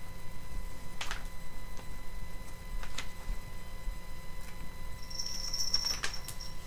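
Magazine pages being leafed through: a few brief paper rustles. A thin, high squeak runs for about a second and a half near the end, over a faint steady hum.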